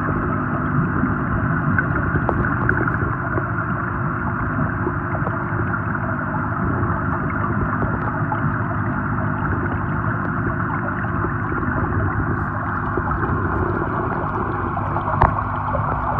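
Underwater in a koi pond: a steady rush of water and rising aeration bubbles over a low, even hum, with a single sharp knock near the end.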